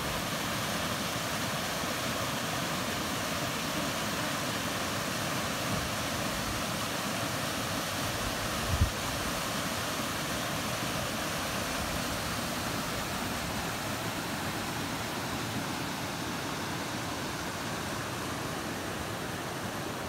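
Small waterfall cascading over rock ledges into a pool: a steady rush of falling water. There is a brief low thump about nine seconds in.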